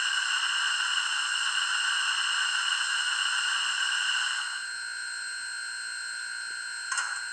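Onboard sound decoder of a Rivarossi H0 Union Pacific Big Boy model locomotive playing its sanding-valve sound: a steady hiss of air that cuts off about four and a half seconds in. A brief faint noise comes near the end.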